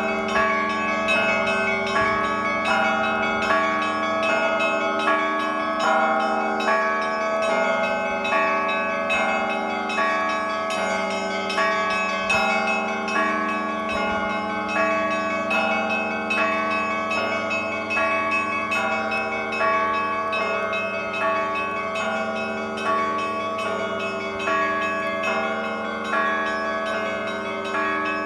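Church bells pealing continuously: many bells of different pitches struck in a repeating pattern, their tones ringing on and overlapping, with the louder strokes about once a second.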